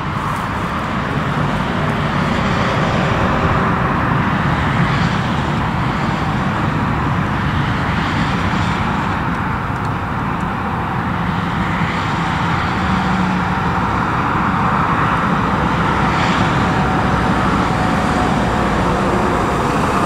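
Steady engine and road noise from a column of fire engines and a fire-brigade command car driving slowly past, a dense continuous rumble that grows slightly louder as they approach.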